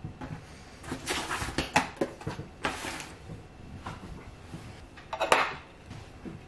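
Rustling and light knocks of objects being handled and moved on a desk, with a louder rustle about five seconds in as a paperback book is picked up.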